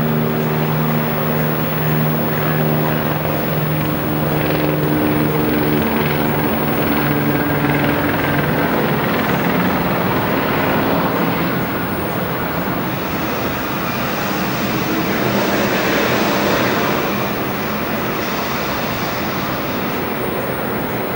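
Steady engine and vehicle rumble under a wash of noise. A droning hum falls slightly in pitch and fades out by about eight seconds in, and a brighter hiss swells for a few seconds past the middle.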